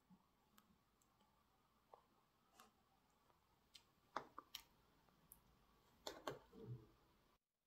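Near silence with a few faint, scattered clicks and taps, clustered about four seconds in and again about six seconds in, then a sudden drop to total silence just before the end.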